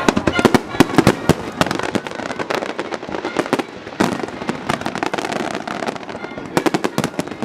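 Aerial fireworks going off in quick succession, a dense run of sharp bangs and crackles, with a heavier burst about four seconds in and a tight cluster of reports near the end.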